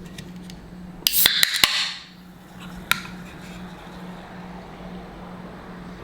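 A quick clatter of hard objects, several sharp knocks about a second in, then one more sharp click a couple of seconds later, over a steady low hum.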